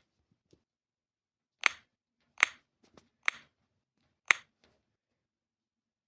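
Four short, sharp clicks, spaced about a second apart, with quiet between them.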